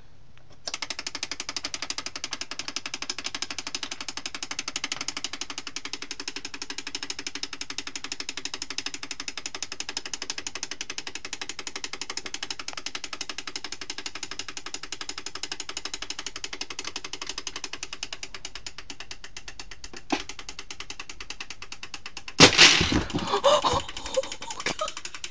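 Perfection board game's wind-up timer ticking rapidly and steadily, then the spring-loaded tray snapping up with a loud pop as time runs out, followed by game pieces clattering.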